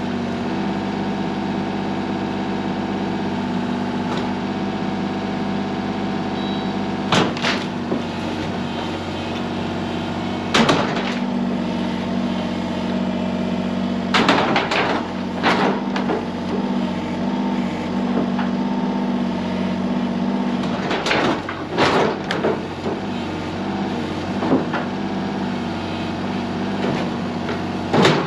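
Kubota U-35-4 mini excavator's diesel engine running steadily under work. Several loud crashes and cracks come at irregular intervals as it breaks up an old wooden shed.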